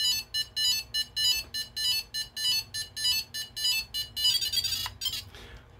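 3DR Solo drone sounding its error tones, a rapid, even string of short high-pitched electronic beeps that breaks off just before the end. The tones mean the GPS is not plugged into the main board.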